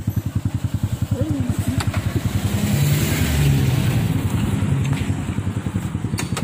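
Motorcycle engine running at low revs with a fast, even pulse, getting louder under throttle for a couple of seconds near the middle.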